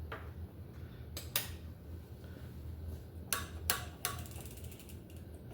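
Light metal clicks and taps of a hand tool working on a bicycle's cantilever brake as it is tightened, about seven in all, irregularly spaced, some in quick pairs.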